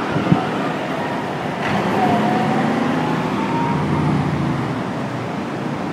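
FDNY Rescue 1 heavy rescue truck's diesel engine running as it pulls away at low speed. The engine note swells about two seconds in and eases off near the end.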